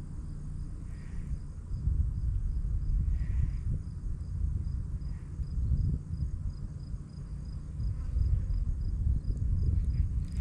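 Insects chirping in a steady, fast pulsing rhythm, with a softer call repeating about every two seconds, over a louder low rumble on the microphone.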